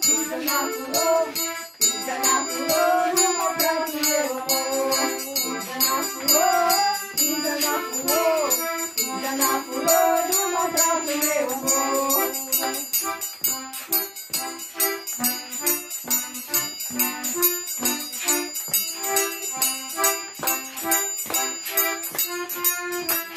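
Background music: a singing voice over a steady rhythm with high jingling percussion. The voice drops out about halfway through, and the rhythm and jingling carry on instrumentally.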